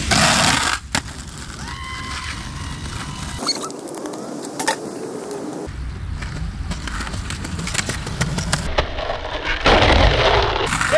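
Skateboard wheels rolling on concrete, with sharp clacks of boards popping and hitting ledges, in several short clips cut together.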